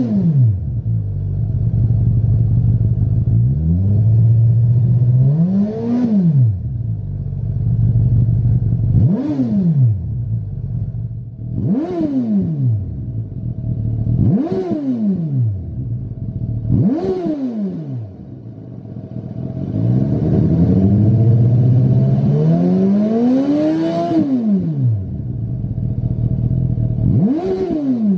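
Suzuki GSX-S1000's inline-four engine idling and being revved with about eight quick throttle blips, two of them slower, longer climbs in revs before dropping back to idle. The exhaust heard is the stock one at first, then a Lextek XP10 aftermarket silencer from partway through.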